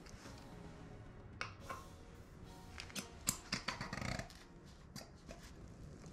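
Light metallic clicks and knocks as a JE piston with its rings is worked by hand into a new Yamaha XJR1300 cylinder bore, most of them in a quick cluster about three to four seconds in.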